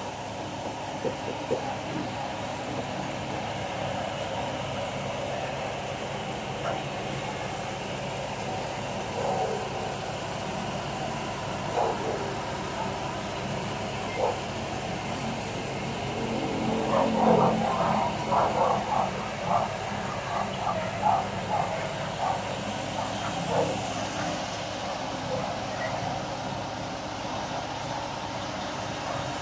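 Outdoor town ambience: a steady hum with scattered short distant sounds, busiest about two-thirds of the way through.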